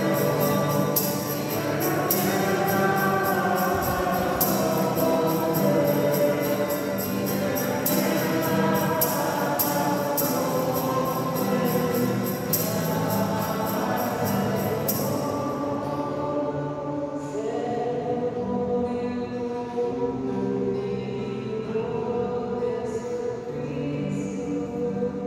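Hymn sung by a group of voices with a steady percussion beat; the percussion stops about two-thirds of the way through while the singing continues.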